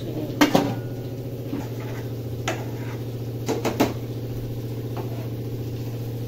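Sharp metal clinks of a steel lid and ladle against an aluminium cooking pot: a pair about half a second in, one at about two and a half seconds, and three quick ones near four seconds, over a steady electrical hum.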